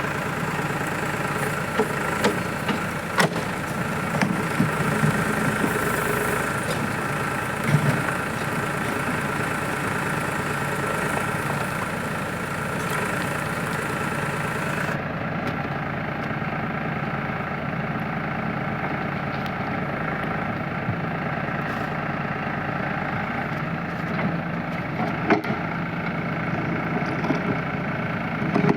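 Tractor-mounted backhoe loader's diesel engine running steadily, with a few short sharp knocks or clanks scattered through.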